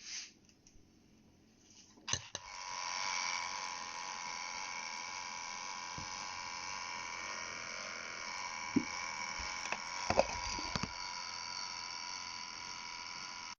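Electric conical burr coffee grinder switched on with a click about two seconds in, then its motor running with a steady whine, with a few sharp clicks near the end.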